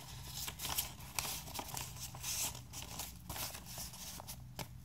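A hand-forged carbon-steel knife, made from a railroad spike, slicing through a hand-held sheet of printer paper in short, irregular strokes, with the paper rustling and crinkling. This is a paper-cutting test of an edge that has lost a little sharpness: it cuts cleanly in parts and snags in a few spots.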